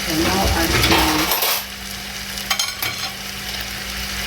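Chicken stir-fry sizzling in a hot pan as it is stirred, louder for the first second or so. A few sharp clicks of the utensil against the pan come about two and a half seconds in, over a steady low hum.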